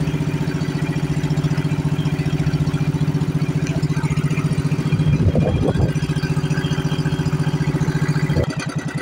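Small engine of a motorized outrigger boat running steadily under way, with an even low pulsing beat. The engine note drops away near the end.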